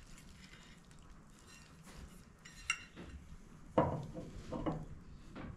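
Metal clinks and knocks as a clutch is handled and fitted onto a small engine's output shaft. There is a sharp clink a little before three seconds in, a louder knock near four seconds, then lighter taps.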